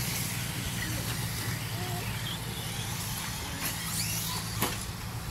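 Electric RC buggies racing on a dirt track: faint rising and falling motor whines over a steady low hum, with two sharp clacks near the end.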